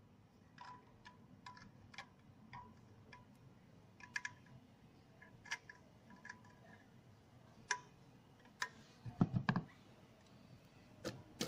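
Scattered small metal clicks and ticks of needle-nose pliers working the spade terminals and capacitor lead of a woofer, with a short run of louder knocks about nine seconds in as the speaker is handled.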